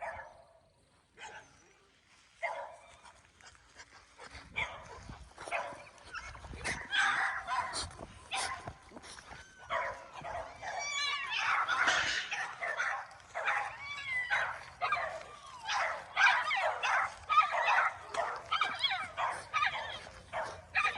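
Merle American Bully puppy whining, yipping and barking in short, pitched calls that come on and off, starting about four seconds in.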